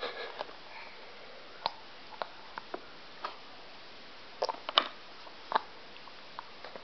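Scattered soft clicks and smacks from a baby being spoon-fed cereal, with a cluster of several close together about four and a half to five and a half seconds in.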